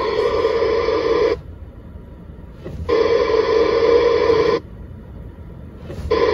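Buzzing noise from a mobile ham radio's speaker inside the car, switching on and off sharply in spells of about a second and a half: twice it cuts out and twice it comes back.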